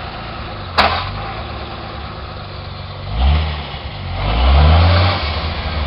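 1987 Jeep Cherokee's engine revving in repeated surges, rising in pitch about three times, as it works to climb a muddy, slick hill with little traction. A single sharp knock sounds just under a second in.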